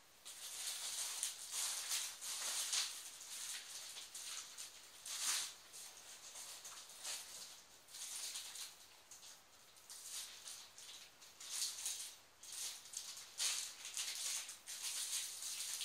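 Plastic packaging rustling and crinkling in irregular bursts as small items are handled and unwrapped.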